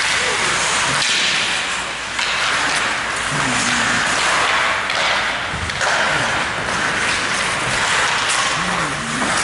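Hockey skates scraping and swishing on rink ice, a steady hiss that swells every second or two, with faint distant voices.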